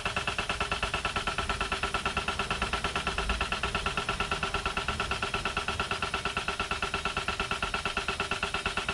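Background music: a steady, fast, even pulse over held tones that do not change.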